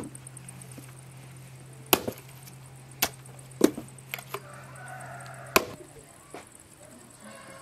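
Meat cleaver chopping into a large pumpkin on a wooden board: four sharp strikes over about four seconds, with a few lighter knocks between them.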